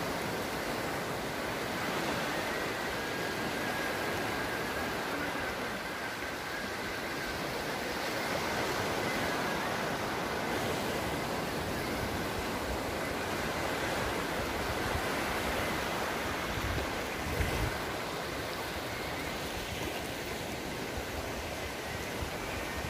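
Sea surf: small waves breaking and washing up a sandy beach, a steady roar of rushing water, with one brief knock about three-quarters of the way through.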